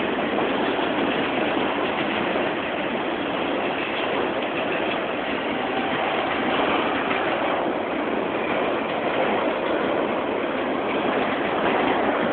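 Freight train of autorack cars rolling past: the steady noise of steel wheels running on the rails.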